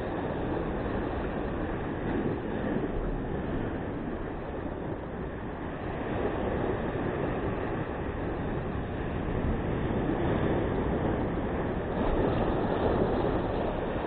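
Sea surf breaking against rocks: a steady rush that swells louder a few times.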